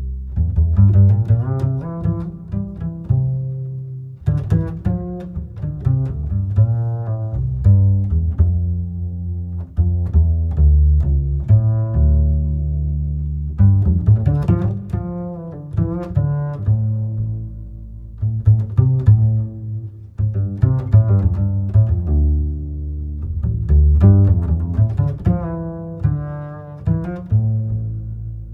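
Background instrumental music, led by deep plucked string notes over a strong bass line.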